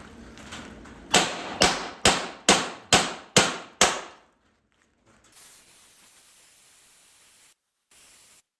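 Seven hammer blows on steel, about two a second, each ringing briefly: knocking the old shock mount bracket off a truck frame after its rivets have been cut. A faint hiss follows.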